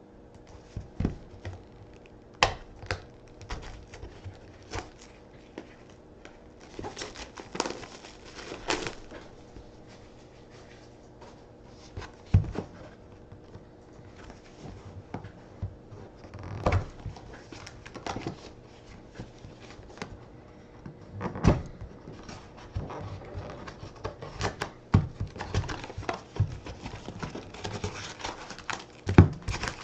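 Scattered taps, clicks and short rustles of hands handling trading-card packs and packaging, with crinkling now and then, over a faint steady hum.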